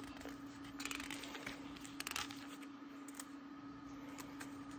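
Quiet room tone: a steady low hum with a few faint rustles and soft clicks.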